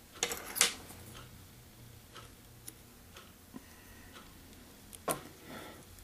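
Small handling clicks and rustles from fingers working materials on a fly clamped in a fly-tying vise: a louder cluster of clicks about half a second in, a few faint ticks after, and another click about five seconds in.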